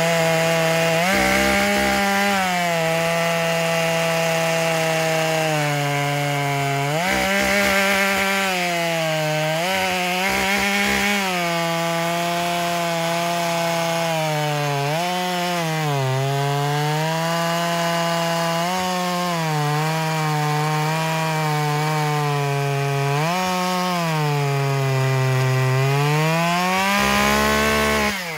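Two-stroke chainsaw cutting through a large white oak log at full throttle. The engine note sags each time the chain bogs under load and climbs again when the cut eases, several times over. The throttle is let off at the very end and the note falls away.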